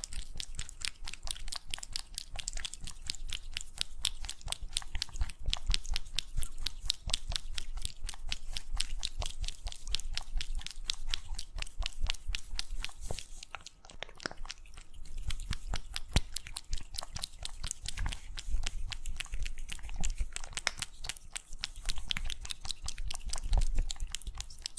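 A pet chewing something crunchy close to the microphone: rapid, continuous crunching that eases briefly about halfway through.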